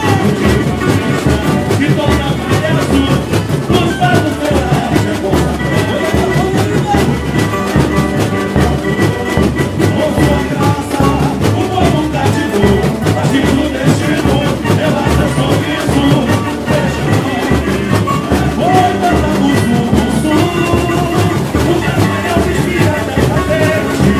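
Live samba-enredo from a samba school: the bateria drums a steady samba beat under massed voices singing the song.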